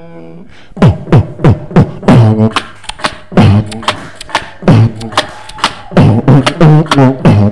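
Beatboxing into a handheld microphone: a steady beat of deep bass kicks, each dropping in pitch, alternating with sharp snare-like clicks, about three hits a second, starting about a second in.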